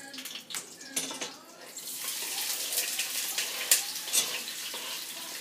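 Chopped onion scraped off a cutting board into a pan of hot oil: a few knocks and scrapes, then a steady sizzle from about two seconds in, with sharp crackles.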